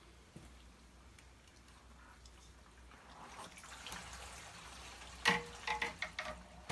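Plastic multiport valve on a pool DE filter being worked by hand. After a few quiet seconds, several sharp clicks and knocks come near the end as the handle is pressed down and turned to the filter position.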